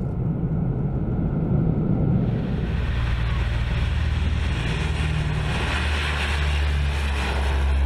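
A vehicle engine running with a steady low drone. About two seconds in, a hissing rush of noise joins it and carries on.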